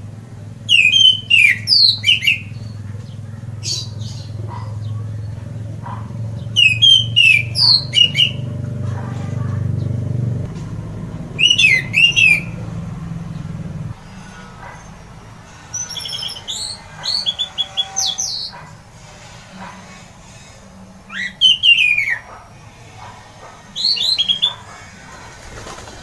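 Orange-headed thrush singing loud: short phrases of quick falling whistles, about seven of them a couple of seconds apart. A low hum runs under the first half and stops about halfway through.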